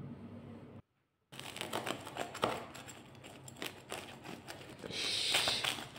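A knife cutting through the crisp crust of a freshly baked potato and rosemary focaccia: a run of sharp crackles and crunches, with a longer rasping crunch near the end. The crunch is the sign of a crust baked crisp and golden.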